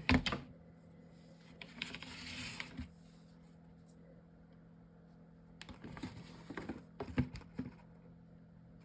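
Small clicks and taps of chipboard and paper pieces being handled and set down on a table, with a short rustling scrape about two seconds in and a cluster of clicks near the end, over a faint steady hum.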